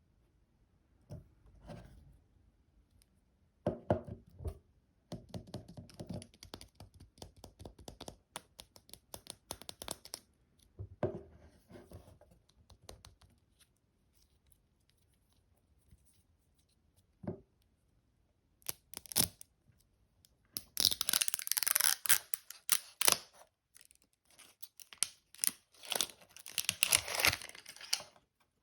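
Surprise egg wrapper being torn open and crinkled close to the microphone, in bursts with quiet pauses between them and a few soft knocks. The longest and loudest tearing comes in the last third.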